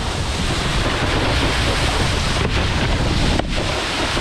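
Wind buffeting an action camera's microphone over the rushing hiss of water spray from a wakeboard skimming across the lake behind a cable tow.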